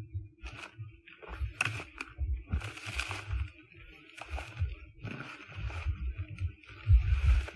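Footsteps and brush rustling as someone walks through forest undergrowth holding the camera, with irregular thuds and handling bumps and scattered sharp twig snaps and crackles.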